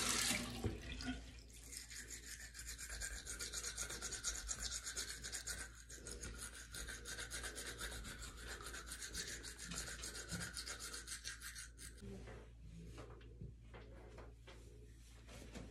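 Teeth being brushed with a toothbrush: rapid, rhythmic scrubbing strokes that stop a few seconds before the end, leaving only a few small clicks.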